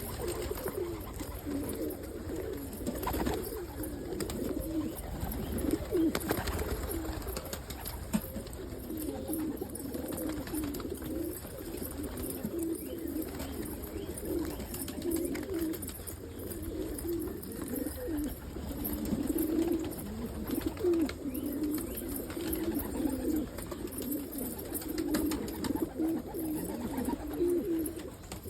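A flock of pet birds cooing, with many low calls overlapping.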